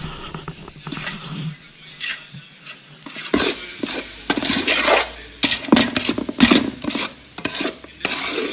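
A metal spoon stirring and scraping thick biriyani masala around a large aluminium pot, with a light sizzle from the pan. About three seconds in the stirring turns louder and quicker, a run of scrapes and clinks against the pot.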